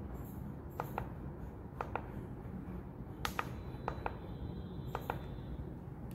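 Push buttons on a Rongde RDYB-208 alarm controller's panel clicking while an alarm setpoint is keyed in: about five presses, each a quick double click, spread over the few seconds.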